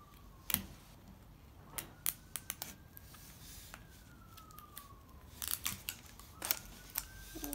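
Plastic wrapper of an L.O.L. Surprise ball being handled and pulled open: scattered sharp clicks and crinkles, several in quick clusters, over a faint tone that slowly glides up and down.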